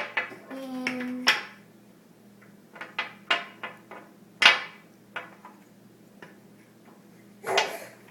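Pieces of a solid-wood toy bulldozer knocking and clacking together as they are fitted back on: a string of separate knocks, the loudest about four and a half seconds in, and a short scraping sound near the end.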